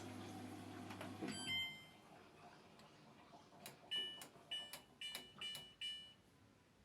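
Samsung WF1702W55 front-loading washing machine's control panel beeping: a low hum stops with a click and a beep about a second and a half in, then five short beeps follow in quick succession, each with a faint click, as buttons are pressed.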